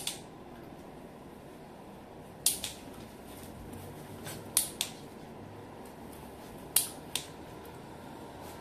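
Dog-training clicker clicked three times, about two seconds apart, each a quick double click of press and release. The clicks mark the puppy's behaviour, and each is followed by a food reward.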